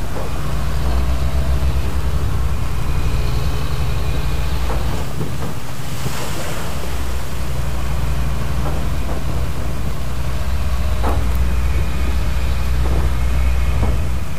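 A boat's engine drones steadily under way, with sea water rushing and splashing along the hull and wind on the microphone. A louder splash of spray comes about six seconds in.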